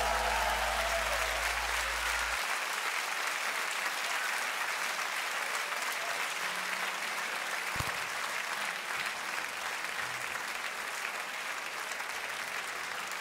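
Concert audience applauding at the end of a rock song, a steady wash of clapping. A low note from the band's last chord rings under it and stops about two seconds in.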